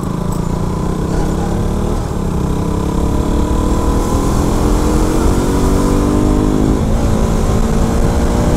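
KTM RC 200's single-cylinder engine running under load as the bike rides, its pitch climbing steadily, with brief dips about two and seven seconds in.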